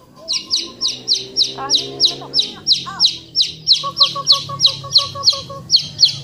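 A bird chirping a fast, even series of short, high, falling notes, about four a second, starting just after the beginning. Softer, lower repeated calls sound underneath in places.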